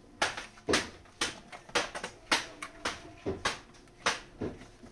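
Footsteps: short, sharp steps at a walking pace of about two a second.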